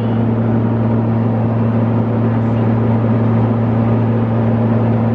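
Steady engine and propeller drone inside the cabin of a small turboprop plane: a loud low hum with a second tone an octave above it, over a constant rushing noise.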